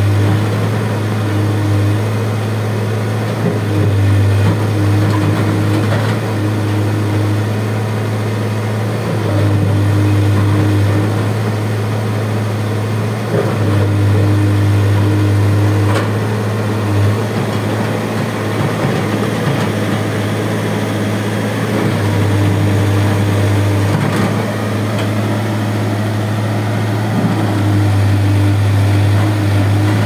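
Case backhoe loader's diesel engine running steadily at a loud level, with a deep hum; a higher tone in its note drops out and comes back every few seconds.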